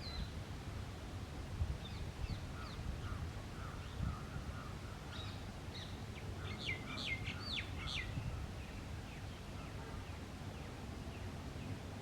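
Jungle babblers calling with short, harsh, repeated notes that bunch into a quick chattering run a little past the middle, over a steady low rumble of background noise.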